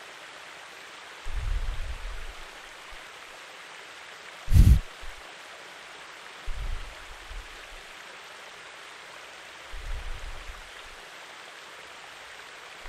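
Steady rushing-water ambience, like a flowing stream, with four low muffled thumps on the microphone spread through it, the loudest a little before halfway.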